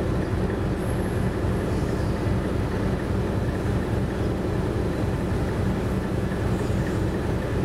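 Dongfeng DF5 diesel locomotive running: a steady, unbroken low rumble.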